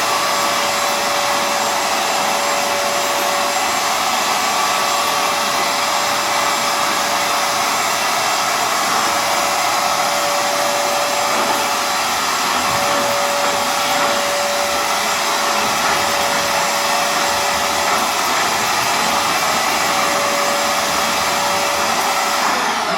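Hoover FloorMate Edge hard floor cleaner's suction motor running steadily in dry mode: a loud whooshing hiss with one steady whine, with the suction cut off from the air-driven spin-scrub brushes. Near the end it is switched off and the whine falls away as the motor spins down.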